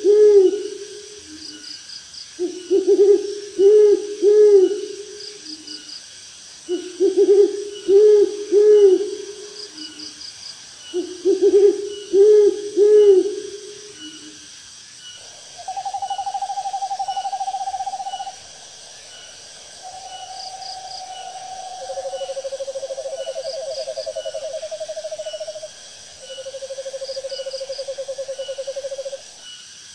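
Owls calling: four bouts of quick low hoots, each note rising and falling, come about every four seconds. About halfway through they give way to long, even trills at slightly different pitches, two of them overlapping. Insects chirp steadily and faintly behind.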